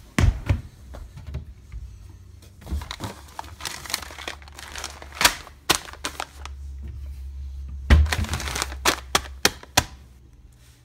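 A foil coffee bag crinkling and rustling as it is handled, with many sharp clicks and knocks through it. A few heavy thumps come right at the start.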